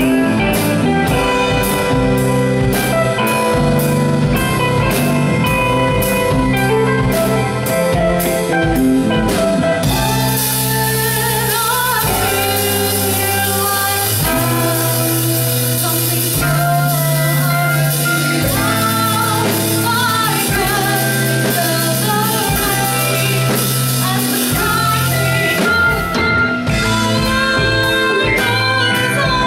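Live rock band playing: electric guitar, bass guitar, keyboard and drum kit, with a steady beat of drum hits. A woman's singing voice comes in about ten seconds in, over busier cymbals.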